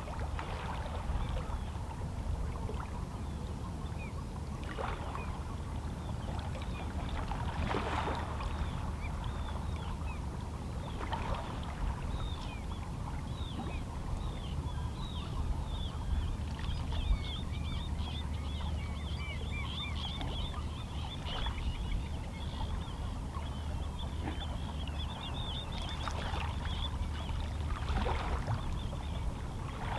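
Small waves lapping against shoreline rocks, a splash every few seconds over a steady low wash of the sea. Distant seabirds call in a rapid chatter of short, high notes through the middle.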